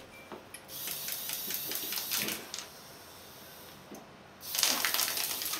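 LEGO Mindstorms NXT robot's motors and plastic gears whirring and its wheels running over a wooden tabletop, played back at double speed, in two spells with rapid clicking and a quieter gap between.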